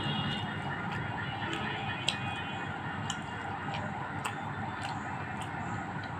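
Close-miked chewing of a mouthful of fried tilapia, with scattered wet mouth clicks over a steady background hiss.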